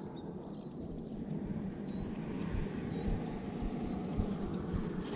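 Steady low rumble of wind and lapping water around a bass boat, with faint short rising chirps about once a second.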